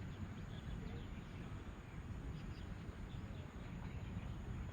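Outdoor background at a ball field: a steady low rumble with faint distant voices and a few short high chirps.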